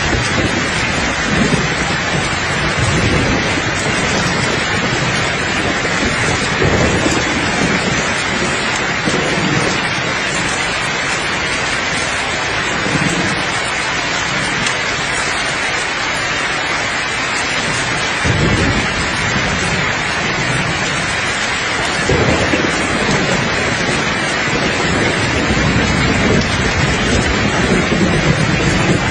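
Steady heavy rain hissing, with soft low thunder rumbling in and out beneath it, the rumbles growing stronger in the second half.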